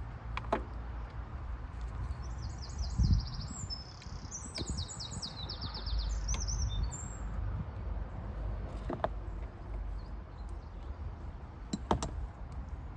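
A small bird singing rapid runs of high, quickly repeated chirping notes for about five seconds, over a steady low rumble. A few sharp knocks and a dull thump, the loudest sound, break in at intervals.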